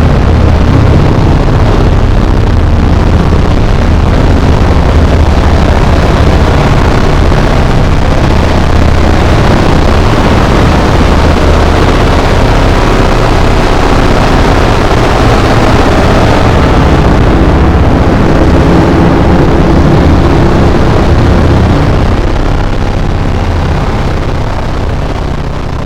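Harsh noise music: a loud, dense wall of distorted noise over a steady low hum, fading out over the last few seconds.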